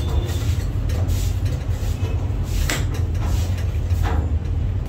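A steady low mechanical rumble, with a few short sharp sounds over it.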